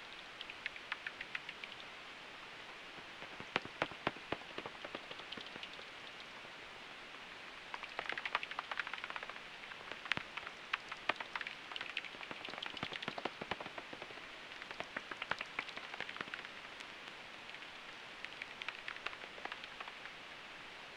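Pipistrelle bat echolocation calls heard through a heterodyne bat detector tuned to 44 kHz: bursts of rapid clicks, several trains of them, over the receiver's steady hiss as bats pass close to the detector.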